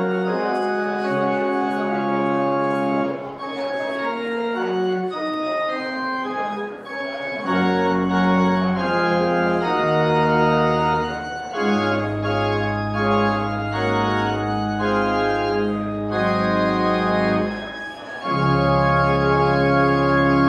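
Church organ playing sustained chords as a closing postlude. Deep bass notes join partway through and swell again near the end.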